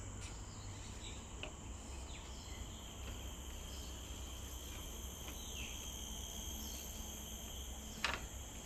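Steady, high-pitched chorus of insects such as crickets, holding two unbroken tones, with a low rumble beneath. A few brief chirps come through, and there is one sharp click about eight seconds in.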